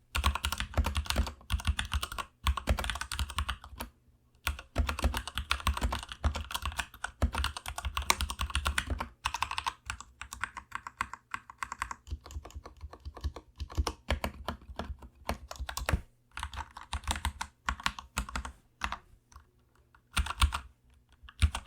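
Typing on a Royal Kludge RK G87 tenkeyless mechanical keyboard with RK red linear switches, keys struck fairly softly in fast runs of clacks with a few brief pauses.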